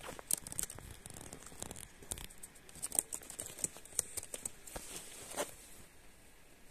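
Rustling and light scratching of bedding and clothing close to the microphone as a pet rat crawls over a blanket and is handled: a run of short scratchy crinkles that dies down near the end.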